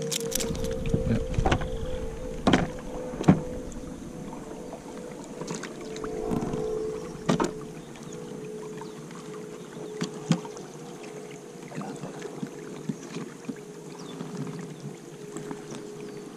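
A kayak's MS Phantom 44 lb electric trolling motor running with a steady, even whine, and a few sharp knocks among it.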